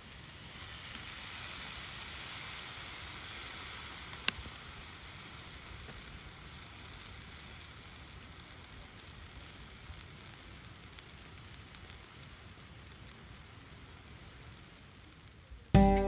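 Food sizzling in a hot pan over a wood fire. The sizzle comes in suddenly and is loudest for the first few seconds, then settles to a steady, quieter sizzle, with one sharp click about four seconds in.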